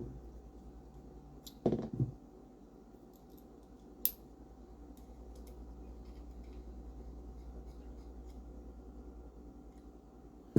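Small metallic clicks and taps of a screwdriver working a small screw into a folding knife's frame, with one sharper click about four seconds in.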